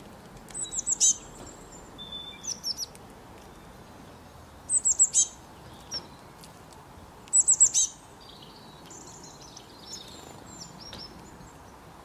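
Small songbirds chirping: three bursts of quick, high, falling chirp notes, with softer scattered calls between them, over a faint steady hiss.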